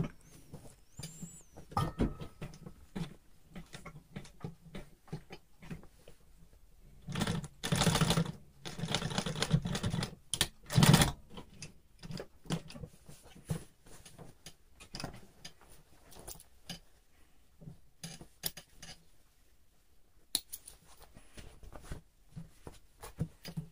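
Industrial sewing machine stitching denim in short runs, with about three bursts of stitching between about seven and eleven seconds in. Scattered light clicks and taps sound throughout.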